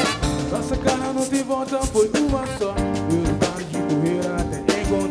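Samba-rock band playing live: drum kit and percussion keeping a steady beat under electric guitar, with a male lead vocal.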